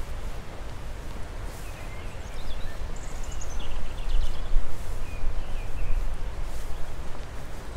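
Small birds chirping and trilling in short phrases, over a steady low rumble.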